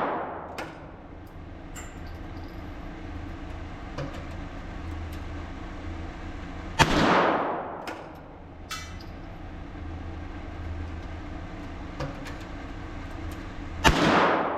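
Two .22 LR shots fired with Norma Match ammunition, about seven seconds apart, each a sharp crack followed by a short fading tail. Faint small clicks come between the shots.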